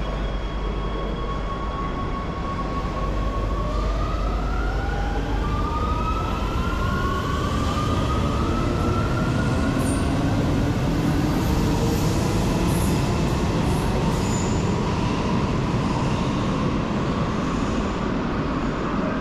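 A metro train pulling out of an underground station. Its electric traction motors whine in several rising tones as it gathers speed, over a steady rumble of wheels on rail that swells as the carriages pass.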